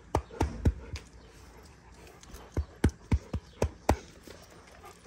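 Hand patting a Rottweiler's body: a quick series of dull thumps, about four a second, in two runs, one at the start and another about two and a half seconds in.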